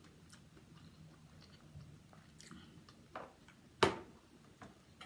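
A person chewing food, with a few small clicks. Two louder knocks come near the end, the second about four seconds in being the sharpest.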